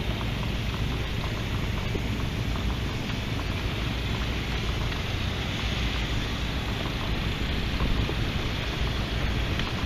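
Steady wind noise on the microphone outdoors, even throughout, with a few faint clicks.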